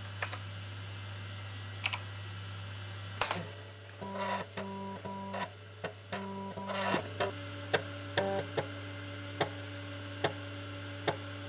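YE-Data YD-380B 5.25-inch high-density floppy drive working with its cover off: the head stepper makes sharp clicks, and from about four seconds in a few seconds of short pitched buzzing bursts as the head seeks across the disk, over a steady low hum.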